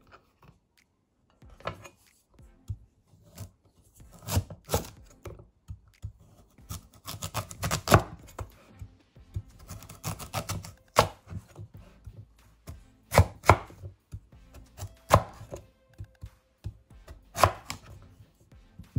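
Steel cleaver chopping through a raw taro root and knocking on a wooden cutting board: sharp single chops at uneven intervals, with a quicker run of cuts around the middle.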